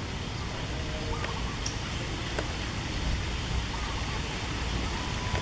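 Steady outdoor background noise, a low rumble under an even hiss, with a few faint short chirps about a second in and again near the end.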